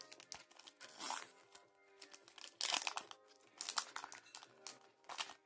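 A foil Pokémon booster pack wrapper crinkling as it is handled and torn open, in several short bursts, over soft background music.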